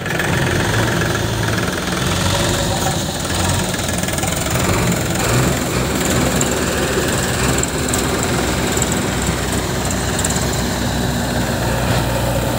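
Diesel engines of a Powertrac 439 Plus tractor and a JCB 3DX backhoe loader running steadily close by.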